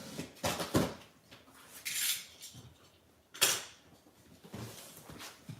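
A large cardboard box and its packaging being handled and set down: two knocks, a rustling scrape about two seconds in, and a sharp crack about three and a half seconds in.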